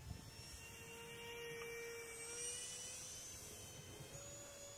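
A 30mm electric ducted fan on a small foam RC jet whining faintly in flight: a steady tone that steps slightly higher in pitch about four seconds in, with a high rushing hiss that swells around the middle.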